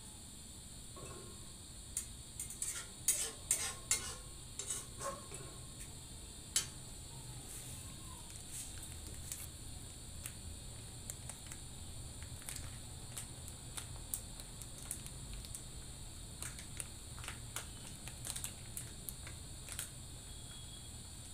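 A metal ladle clinking and scraping against a steel kadai during stirring. There is a quick run of sharp clinks in the first few seconds, then lighter taps scattered through the rest.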